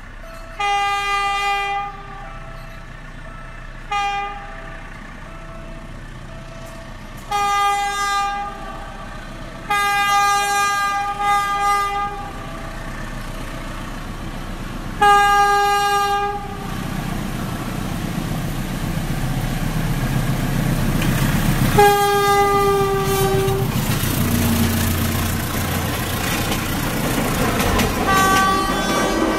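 Philippine National Railways diesel locomotive sounding its horn in about seven blasts, short and long, as it approaches. Its engine and wheels grow steadily louder as the train comes up and passes close by.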